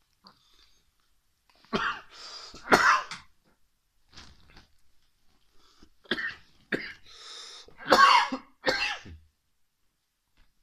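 Coughing and throat clearing in two short, loud bouts, about two seconds in and again around six to nine seconds in.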